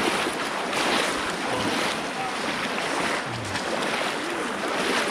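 Pond water sloshing and splashing as people wade chest- to neck-deep through it, the noise swelling and easing about once a second.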